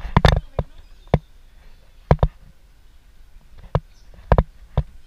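Sharp, close knocks or taps, about ten in five seconds at an irregular pace, several in quick pairs, with a denser cluster right at the start.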